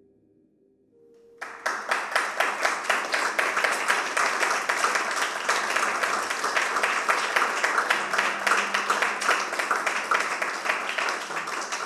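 A faint held musical tone dies away, then audience applause breaks out suddenly about a second and a half in. The applause carries on steadily and thins near the end.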